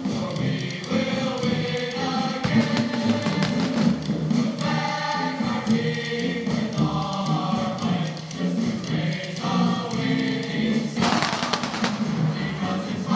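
Choral music, a choir singing sustained chords, with scattered firework bangs. Near the end comes a burst of firework crackling that lasts about a second.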